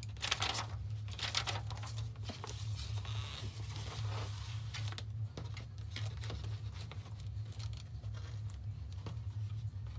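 Crinkling and rustling of a roll of clear plastic self-adhesive contact paper (Mactac) being handled and unrolled on a table, with the loudest crackles in the first half and fainter ticks after. A steady low hum runs underneath.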